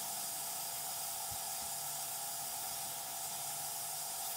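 Hot-air rework station nozzle blowing a steady hiss of hot air, with a faint steady tone under it, heating the solder joints of a through-hole micro switch to melt them so the switch can be lifted off the circuit board.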